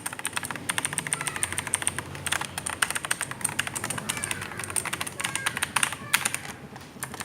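Fast, continuous typing on a Gigaware K26 mechanical keyboard with Outemu blue switches, which are clicky: a rapid, irregular stream of sharp key clicks.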